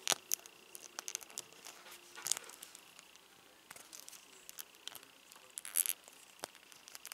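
Faint, irregular small plastic clicks and scrapes as an action figure's tiny plastic knife is worked into its hand, with fingertips rubbing on the plastic; a few slightly louder scrapes stand out.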